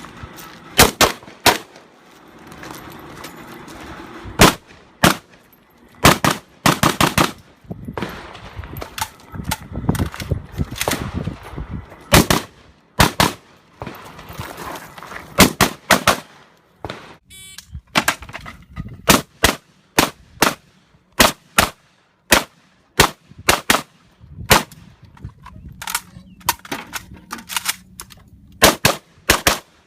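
AK rifle firing in quick strings of single semi-automatic shots, a few tenths of a second to about a second apart, with short pauses between strings: dozens of shots in all.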